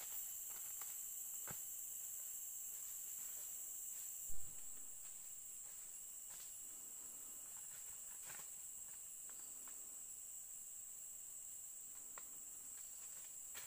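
Steady high-pitched chorus of rainforest insects, several shrill tones held level, with scattered soft footsteps crunching on leaf litter. A single brief low thump about four seconds in.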